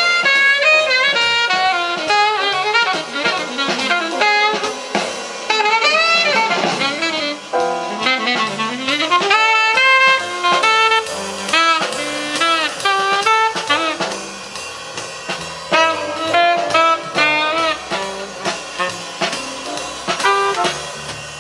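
Jazz recording with a saxophone playing fast, rising and falling runs over a drum kit, played back through Dynaco A-10 bookshelf loudspeakers driven by a Technics SE-A100 stereo power amplifier.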